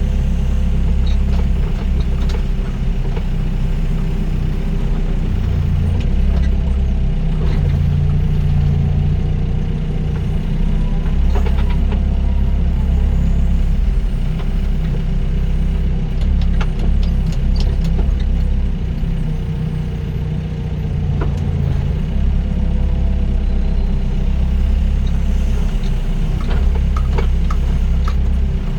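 Doosan DX55 mini excavator's diesel engine running under working load, its low drone swelling and easing in stretches as the hydraulics dig and swing, with a few short knocks.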